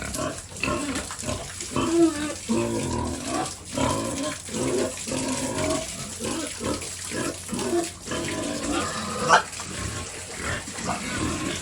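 Pigs grunting over and over in short low calls, with one sharper, louder sound about nine seconds in.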